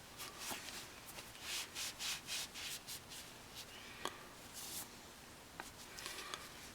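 A quick run of short rubbing strokes by hand, each a brief scraping hiss, with one sharp click about four seconds in. This is the kind of sound made when a brake caliper slide pin is wiped or scrubbed clean before it is re-greased.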